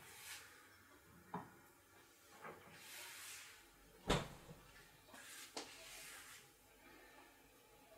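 Refrigerator door and glass bottles being handled: a few light clicks and clinks, then the fridge door shutting with a thump about four seconds in, and a couple more small knocks after it.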